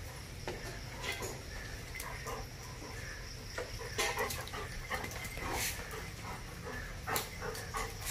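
A German shepherd chewing and mouthing a plastic scrub brush: scattered short clicks and scrapes, a few louder ones in the second half.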